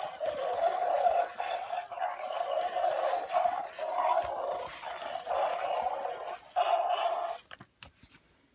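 Gemmy animated mummy dog Halloween prop growling through its built-in speaker: a run of rough growls that stop about seven seconds in, followed by a few clicks.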